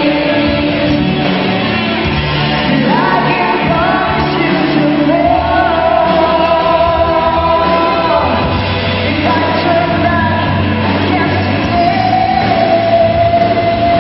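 Live rock band playing: electric guitars, bass and drums under a singer's long, held notes that slide between pitches.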